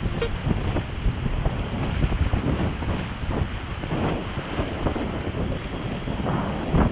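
Wind rumbling and buffeting on the microphone over the steady rush of river water.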